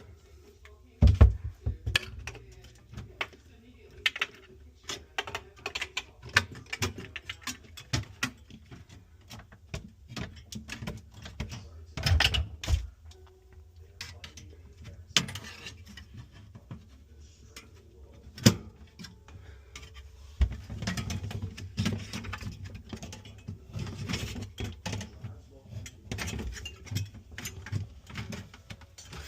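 Irregular clicks, taps and clatters of hard parts being handled during refrigerator repair work, with louder knocks about a second in and around twelve seconds in.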